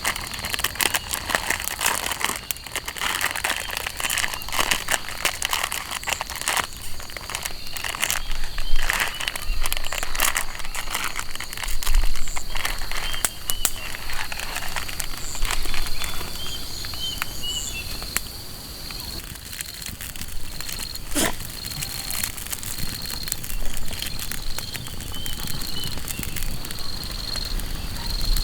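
Irregular crackling and rustling clicks, thickest in the first half and thinning out later, over a thin steady high tone.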